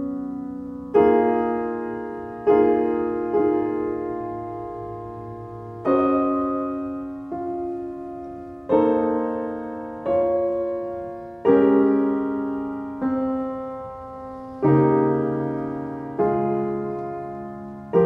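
Background piano music: slow chords, each struck and left to fade, with a new one every second or two.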